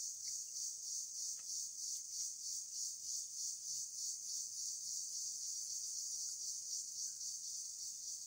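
Insects chirring, a high shrill chorus that pulses about three times a second.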